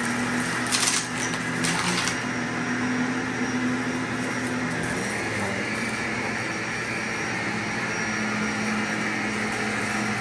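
Vacuum cleaner running steadily in slow passes, a constant motor hum and airflow hiss, with a few short sharp crackles about one and two seconds in.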